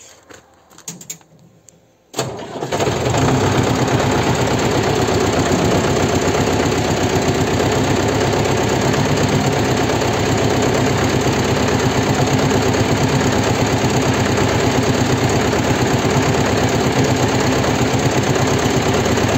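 A tractor engine starts about two seconds in and then runs steadily, driving the hydraulics that tip the converted trailer's body over to the side.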